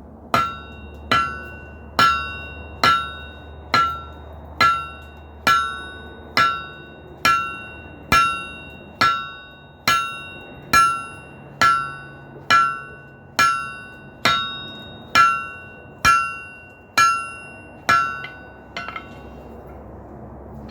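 Blacksmith's hammer blows on hot 3/4-inch square mild steel bar over the anvil, a steady rhythm of a little over one blow a second, each strike ringing briefly, with a few lighter taps near the end. The blows are upsetting the end of the bar to thicken it.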